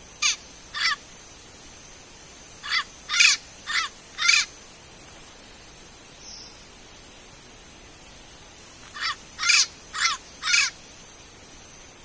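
Turquoise-fronted parrot (Amazona aestiva) giving short, loud calls in three groups: two calls, then four, then four more.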